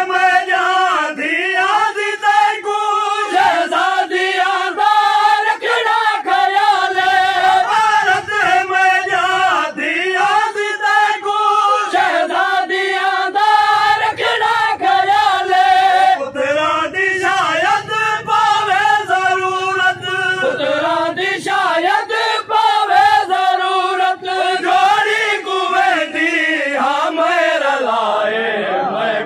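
A group of men chanting a noha (Shia lament) in unison behind a lead voice, the melody unbroken. Sharp hand strikes of chest-beating (matam) keep a rhythm under the chant.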